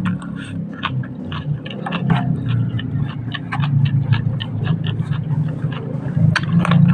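Close-up chewing of food, with many short wet mouth clicks and smacks several times a second over a low steady hum.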